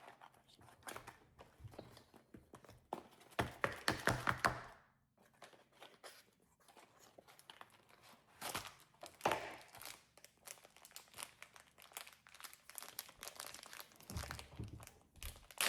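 Plastic packaging crinkling and rustling as it is handled, with scattered light clicks; the busiest, loudest stretch comes about three and a half to five seconds in.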